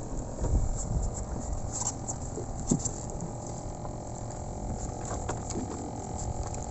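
Water lapping and splashing, with a few light knocks and clicks over a steady low rumble.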